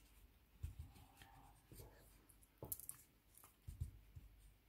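Faint scratching, rustling and small clicks of a crochet hook and yarn being worked through stitches, with a few soft bumps of handling.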